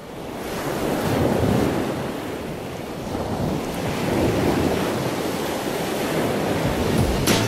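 Sea surf washing on a beach, with wind on the microphone; the rushing noise fades in, then swells and eases twice.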